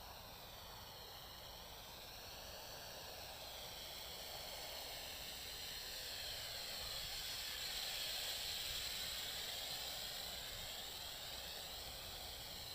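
JXD 509 toy quadcopter's small electric motors and propellers whining in flight, the pitch rising and falling as the throttle changes. It grows louder towards about eight seconds in, then eases.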